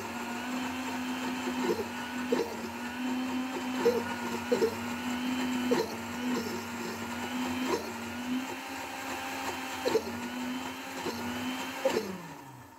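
Electric mixer-grinder motor running steadily, blending milk and cooking oil into thickening eggless mayonnaise, with occasional knocks. Near the end it is switched off and its pitch falls as the motor spins down.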